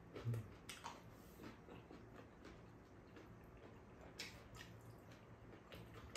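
Faint eating sounds: a few scattered short clicks and smacks of mouths and of spoons and chopsticks against bowls.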